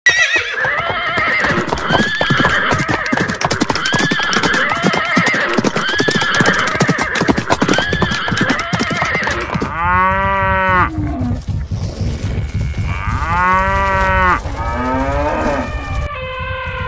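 Cattle mooing: two long, low moos, then a shorter call that rises in pitch. Before them, a stampede of many hooves drums rapidly under an animal call that repeats about every two seconds.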